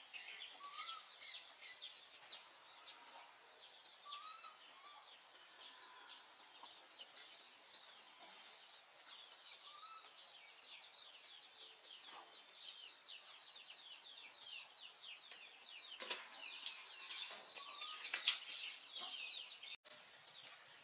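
Birds chirping: a steady run of quick, high, falling chirps, with a few lower, short rising calls now and then. A couple of brief sharp noises stand out near the end.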